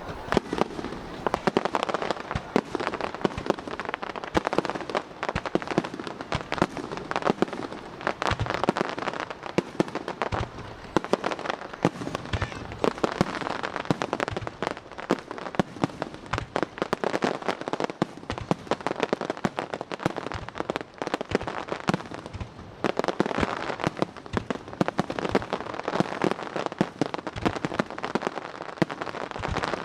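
Fireworks display: a dense, unbroken run of sharp bangs and crackling bursts, with shells and crackling stars going off in quick succession.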